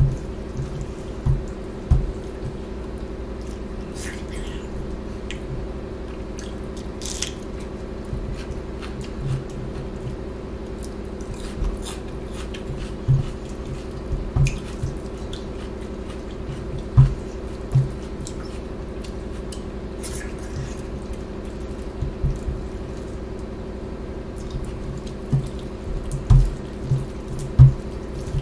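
Wet squelching of rice being mixed with dal by hand, with chewing, wet mouth clicks and soft low thumps at irregular moments, more of them near the end, over a steady low hum.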